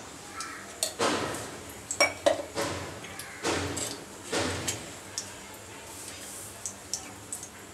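Kitchen utensils and pots clinking and clattering several times in quick succession, some strikes ringing briefly, then settling down near the end.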